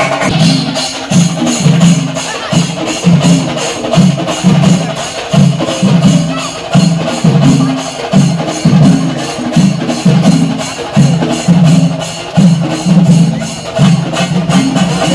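Loud percussion music: drums beating in a pulsing rhythm, with cymbals clashing throughout.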